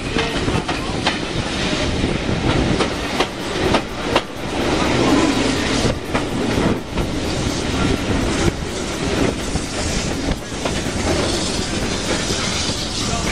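Moving heritage train heard from a coach window: steady running noise, with the wheels clacking over rail joints.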